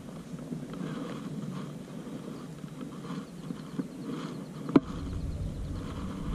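Spinning reel being wound in a lure retrieve: a soft, repeating sound about twice a second, with one sharp click a little past three-quarters of the way through.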